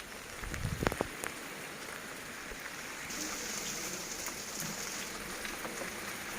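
Heavy rain falling in a steady hiss, with a few low thumps about a second in. The hiss grows stronger about three seconds in.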